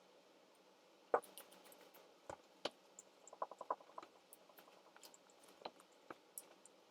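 Quiet eating sounds: scattered small clicks and taps of chewing and handling chicken nuggets. There is a sharp tap about a second in and a quick run of about six clicks midway.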